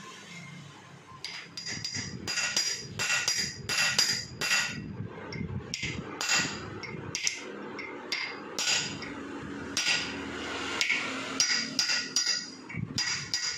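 Hammer blows on a steel drift held in the spark plug hole of a Honda CD70's aluminium cylinder head, driving in a new spark plug bush. There are repeated sharp metallic clinks with a short ring, about two to three a second, with a brief pause near the middle.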